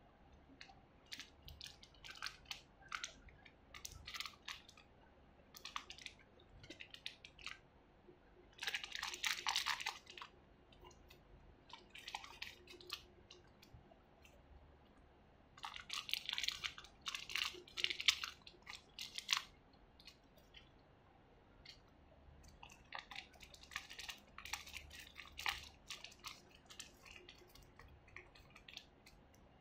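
Thin clear plastic bags crinkling and crackling in the fingers as small plastic figure parts are unwrapped, with three louder spells of crackling.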